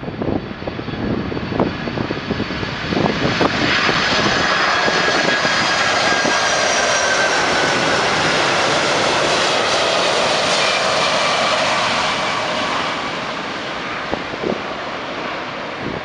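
Boeing 747-400 jet airliner on landing approach flying low overhead: the roar and fan whine of its four jet engines swell to a peak through the middle, with the whine tones falling slightly in pitch as it passes, then fade. Wind buffets the microphone at the start.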